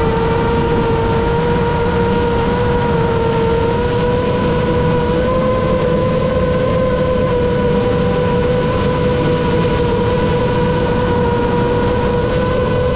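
AOS Falcon 7 FPV quadcopter's T-Motor F90 1300KV motors and propellers cruising at steady throttle. It is a steady whine with overtones over a rushing noise, its pitch creeping slightly upward.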